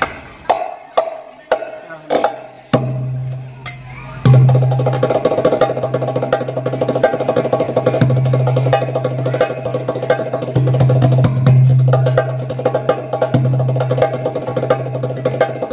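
Darbuka played with the hands: a few separate sharp strikes and short rolls, then from about four seconds in fast, continuous drumming together with the hadroh frame drums. A low steady hum comes in about three seconds in and runs under the drumming, breaking off now and then.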